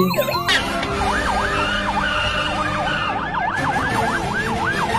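Police car siren wailing up and down, the sweeps speeding up into a faster yelp about halfway through, over a steady noise. In the first half second a toy siren's warble gives way to it.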